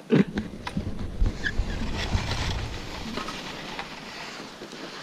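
Skis scraping and chattering over hard, wind-packed snow as a skier drops into a steep couloir, loudest in the first few seconds and slowly fading as he moves away downhill.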